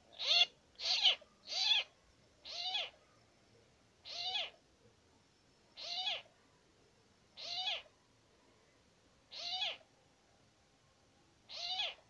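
An animal giving short, high mewing calls nine times, three in quick succession and then one every one and a half to two seconds.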